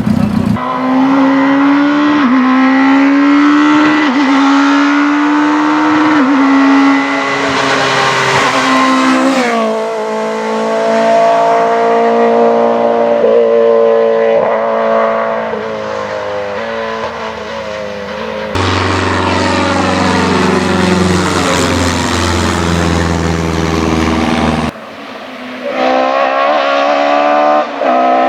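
Rally car engines running hard at high revs. The pitch climbs and dips with gear changes and lifts off the throttle, and the sound changes abruptly twice between passages.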